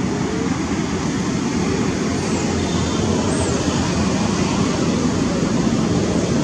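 Steady low rumbling background noise, with a few faint, short high whistles around the middle.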